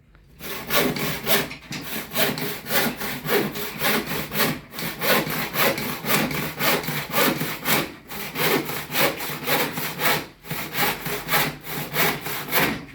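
Handsaw cutting through a wooden plank in quick back-and-forth strokes, about three a second, with a few short pauses.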